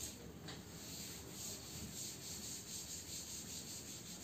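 Blackboard duster wiping chalk off a blackboard in faint, repeated back-and-forth strokes.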